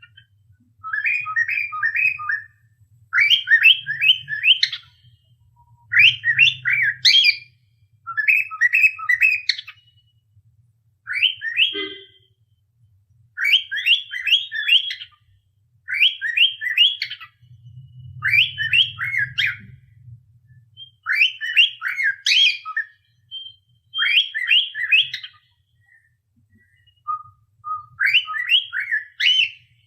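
Cockatiel whistling a learned tune in short phrases of three or four quick rising notes, one phrase about every two seconds with brief pauses between.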